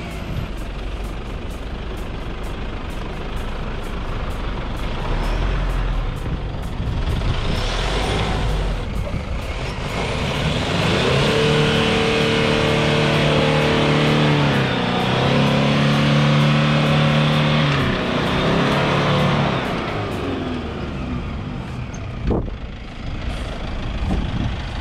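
Toyota Hilux ute driving up a muddy track, its engine revving up and held under load twice in the middle of the climb, over a steady rushing noise. A single sharp knock comes near the end.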